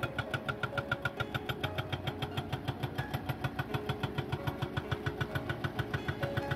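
Hydraulic breaker on a Volvo crawler excavator hammering rock in rapid, even blows, several a second, with the excavator's diesel engine running under it.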